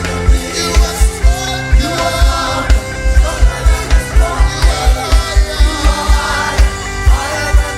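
Gospel praise music from a church worship band: singing over sustained instruments and a fast, steady kick drum beat.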